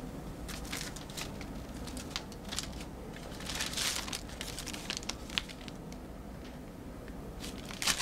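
Paper rustling and crinkling in short crackles as an envelope of banknotes is handled and the notes are pulled out, with one longer crackle of paper about four seconds in.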